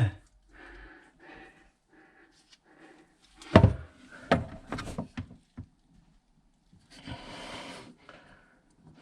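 Hand tools knocking and clicking against pipework as an old gas pipe is worked loose: one sharp knock about three and a half seconds in, a run of smaller knocks after it, and a short hiss-like rasp about seven seconds in.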